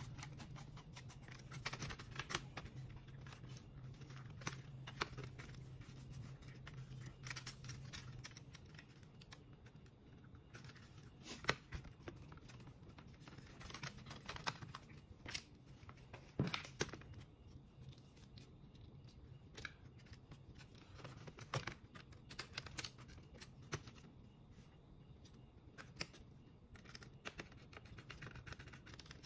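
Faint, scattered clicks, taps and scrapes of hands working inside an ASUS X502C laptop, seating the motherboard and pressing ribbon cables and connectors into place. A faint low hum fades out about eight seconds in.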